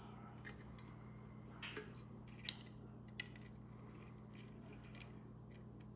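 A few light metallic clicks and taps from small tools being handled during soldering work, over a faint steady electrical hum.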